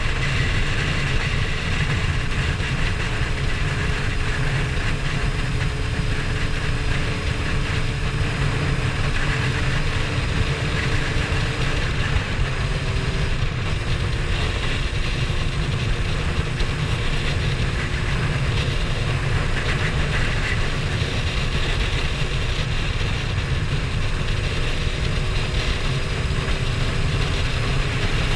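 Sport motorcycle engine running steadily at cruising speed under heavy wind noise on the microphone. The engine note drifts slowly and steps to a new pitch once about halfway through.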